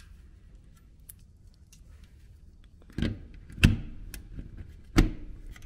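A plastic plug adapter being handled and pushed into a wall socket: three sharp clicks and knocks, the first about three seconds in and the last near the end.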